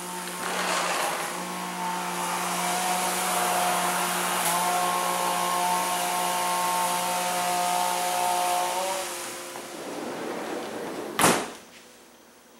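Steady whooshing machine noise with a hum of several steady tones, like a running motor-driven blower or fan. Near the end there is one sharp knock, after which the noise is gone and it is much quieter.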